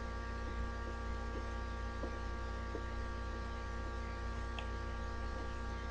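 Steady electrical mains hum with a few faint, light ticks scattered through it.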